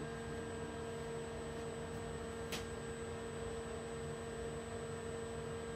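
Steady electrical hum and whine, a few pure tones held at one pitch, from an idle DIY CNC lathe whose motors and drives are powered but not turning. A single faint click about two and a half seconds in.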